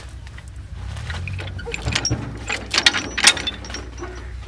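Metal clinks and rattles from a tractor's rear hitch linkage being worked by hand, with a run of sharp clanks about two to three seconds in. Under it is the steady low hum of the tractor's engine running.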